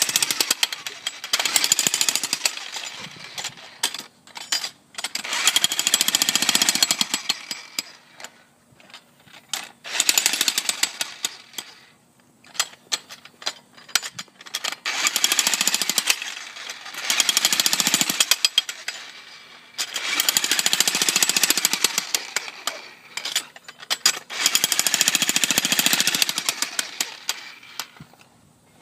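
Corded electric jackhammer breaking concrete. It runs in bursts of one to three seconds, about seven times, with short pauses between.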